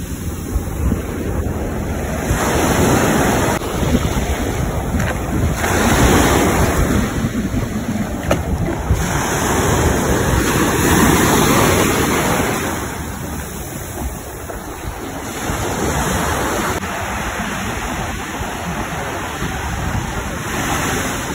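Ocean waves breaking on a beach, swelling and easing every few seconds, with wind rumbling on the microphone.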